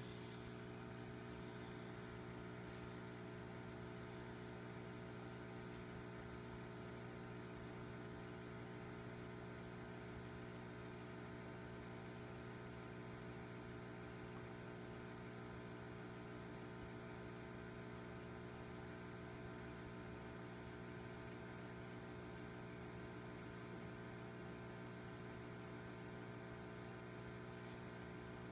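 A faint, steady electrical hum made of several unchanging low tones, over a light hiss.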